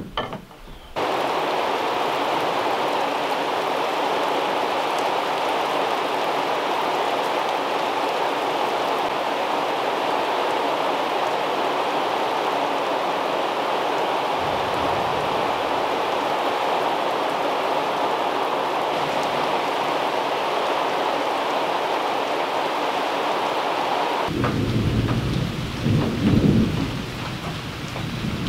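Rain falling steadily. About four seconds from the end a low thunder rumble comes in under it.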